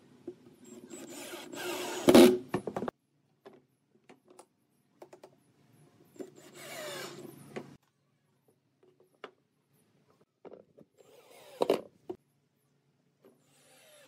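Cordless drill driving screws into pine boards: two short runs of a second or two each, about a second and six seconds in, the first rising to a loud sharp peak. Scattered light wooden knocks follow, with one loud knock of wood on wood a couple of seconds before the end.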